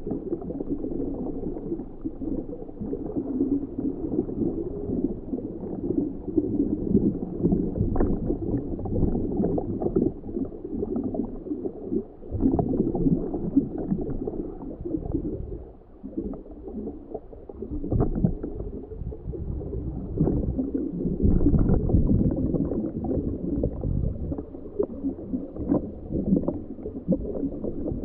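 Uneven low churning and gurgling of water around a homebuilt ROV underwater, swelling and dropping, with a quieter dip a little past halfway and a few faint ticks.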